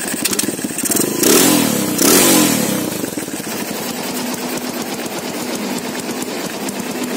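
Honda Tiger's stock single-cylinder four-stroke engine, with a custom exhaust, revved in two quick throttle blips about a second apart, then settling to a steady idle.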